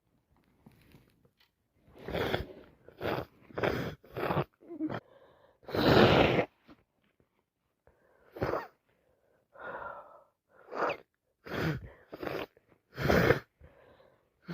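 A person with a heavy head cold blowing her congested nose into a tissue: a string of short blows, with one longer, louder blow about six seconds in.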